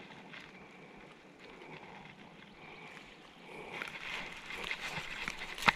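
Faint outdoor background at first. Then, from a few seconds in, handling noises as forceps work a fly out of a fish's mouth over dry leaves: rustling and small clicks, with one sharp click near the end.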